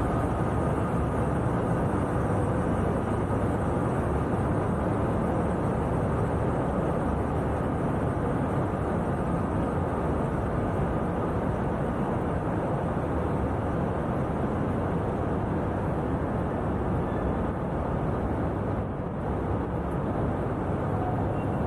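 Steady low rumble of vehicle or engine noise in a busy city ambience, with no distinct events standing out.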